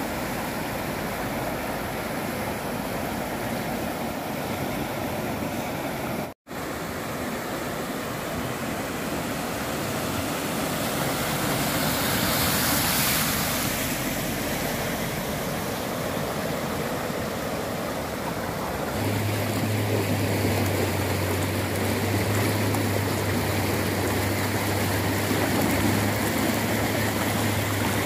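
Muddy floodwater rushing across a road in a steady, loud hiss. Around the middle a car drives through the flood and the hiss swells. About two-thirds of the way in a steady low hum joins the rushing water.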